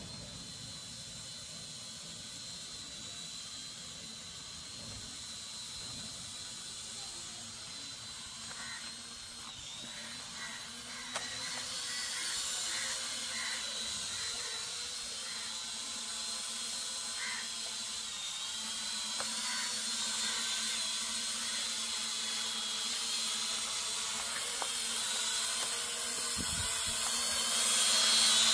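Quadcopter drone (DJI Mavic type) flying overhead, its propellers giving a steady high-pitched whine that wavers a little in pitch and grows louder toward the end as it comes closer.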